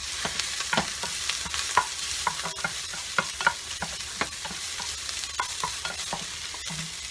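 Ginger frying in hot cooking oil in a pan with a steady high sizzle, while a utensil stirs it and knocks against the pan in quick, irregular clicks.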